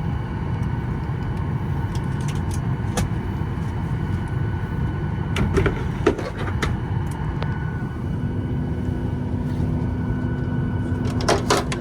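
Steady low rumble of an airliner cabin's air conditioning while parked with the engines not yet started, with a few sharp clicks and knocks about halfway through and again near the end. A steady low hum joins in about two-thirds of the way through.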